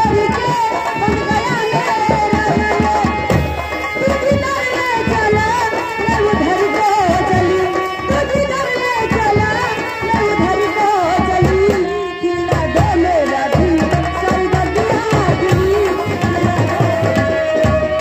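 Live folk stage music: fast, driving hand-drum rhythm under a wavering melody line, with a brief break about two-thirds of the way through and a long held note near the end.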